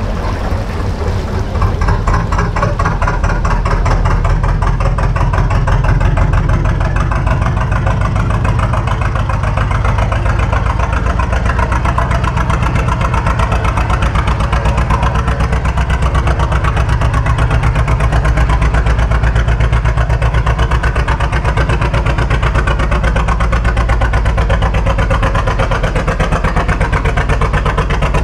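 Narrowboat's diesel engine running slowly, with a steady, even beat.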